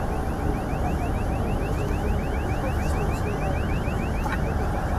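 Airfield ambience: a steady low rumble of jet aircraft flying the aerobatic display, with a fast high chirp repeating about six times a second.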